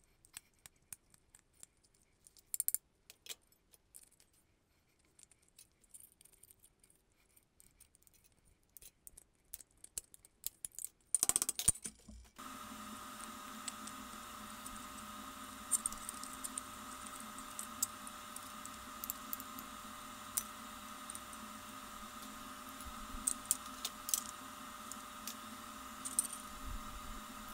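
Aviation tin snips cutting rusty steel plate: scattered sharp metallic snips and clicks, with a quick flurry of cuts just before halfway. A steady hum comes in about halfway through and runs on under the further snips.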